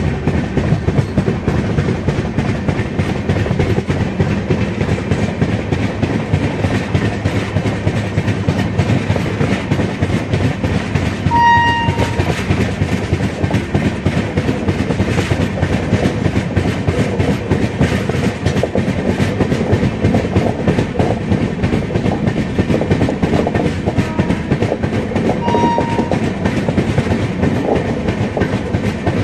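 Express train of LHB coaches behind a WAP5 electric locomotive rolling past, its wheels clattering steadily over the rail joints. Two short, high-pitched horn blasts sound, one about eleven seconds in and another near the end.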